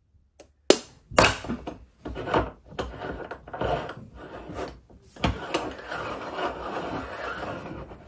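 Close-up kitchen handling of an aluminium Bialetti Moka Express stovetop coffee pot. A spoon scrapes and taps ground coffee in the filter basket, with sharp clicks. Then the top chamber is screwed onto the base, and the metal threads rasp against each other.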